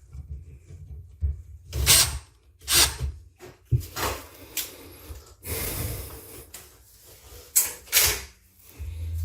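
Handling noise from work on an air conditioner's parts: a series of sharp knocks, clicks and scrapes, one longer scrape in the middle. A low steady hum starts near the end.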